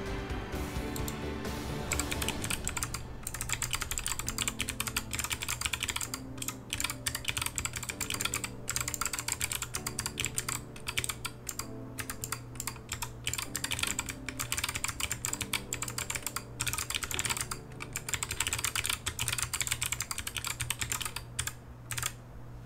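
Rapid keystroke clicks of one hand typing fast on a small custom mechanical keyboard, one half of a Keebio Nyquist running one-handed QMK firmware, with a few brief pauses between bursts. Background music plays underneath.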